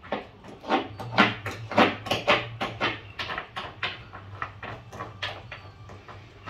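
Paintbrush strokes scrubbing black coating into the corner of a fibreglass boat hull floor: quick, irregular scratchy swishes, two to four a second.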